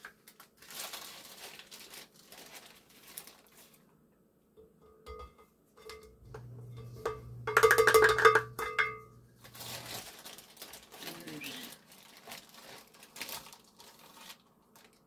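Biscuit mix rustling in its bag as it is scooped out with a plastic half-cup measure and tipped into a glass mixing bowl, with light knocks of the cup. A louder pitched sound lasting about a second comes about halfway through.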